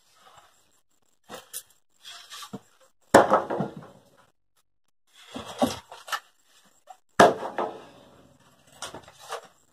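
Wooden floor framing being knocked apart with a hammer: a series of knocks and wood clattering, with two loud sharp bangs, one about three seconds in and one about seven seconds in.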